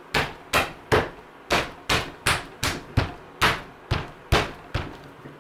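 About a dozen sharp knocks, two to three a second, as 3D-printed plastic hinge parts of a folding work surface are pressed and knocked into place, going back over the ones that didn't seat.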